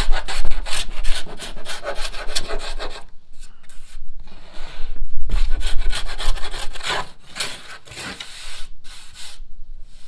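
Hand plane shaving the tapered scarf bevel on a plywood edge, with rapid repeated strokes, a short pause a few seconds in, then more strokes that get fainter near the end. It is trimming an uneven scarf joint.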